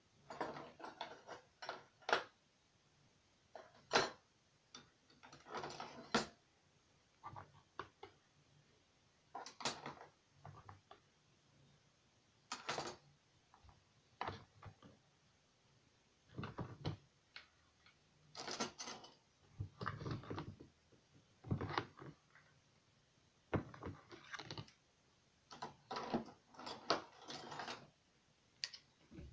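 Irregular light kitchen clatter: short clinks, clicks and soft knocks of hard objects being handled, one every second or two.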